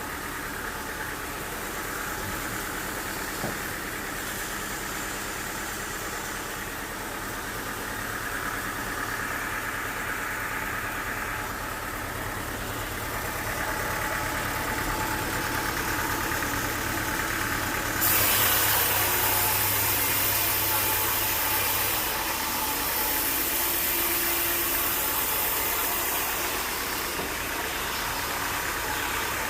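Sawmill machinery running steadily. About two-thirds of the way in, a louder, higher-pitched noise starts abruptly, then eases off.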